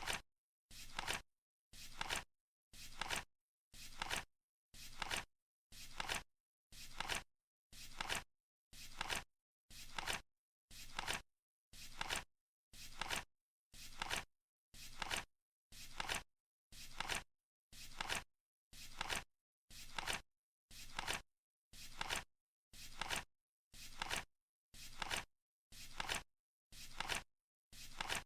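Flip-clock countdown timer's flip sound, a short flip of the number cards once every second, evenly spaced, as the seconds count down.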